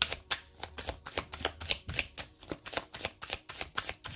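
A deck of oracle cards being shuffled by hand: a quick, even run of short card snaps, about four a second.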